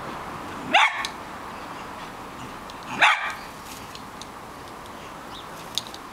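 Bedlington terrier barking twice, about two seconds apart, each bark short and rising in pitch.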